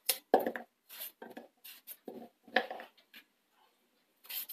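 Pumpkin being cut into chunks with a knife held over a saucepan, the pieces dropping into the pan: a string of about eight short, irregular knocks and cuts.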